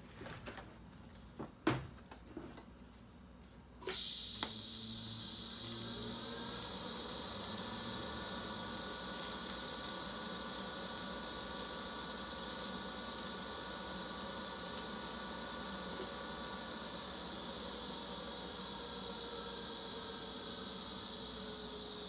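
A few light clicks, then about four seconds in a TIG welding arc strikes and runs steadily with a high buzz and hiss as a cast iron manifold is welded to a stainless steel V-band flange.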